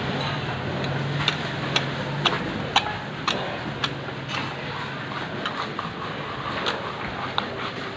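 Big knife clicking against a wet wooden chopping block with each slicing stroke while filleting a fish, sharp clicks about every half second that fade after the first half, over a steady background hum.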